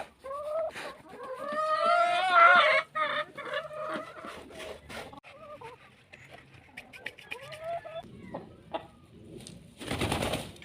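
Chickens calling and clucking, with one long, wavering call about two seconds in and shorter calls later. A brief burst of noise comes near the end.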